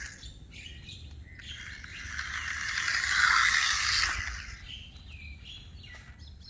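Small remote-control toy car's electric motor and gears whirring as it drives. The whir swells to its loudest a few seconds in, then fades.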